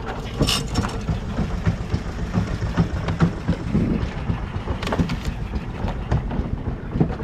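Small river boat's engine running steadily, with a few sharp knocks about half a second in and again about five seconds in.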